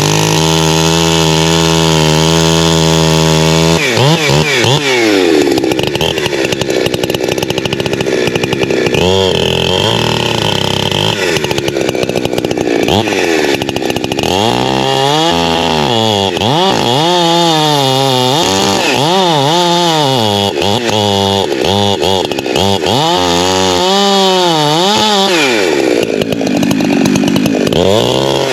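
Holzfforma G372XP two-stroke chainsaw running at a steady speed for the first few seconds, then cutting, its engine speed rising and falling over and over through the second half.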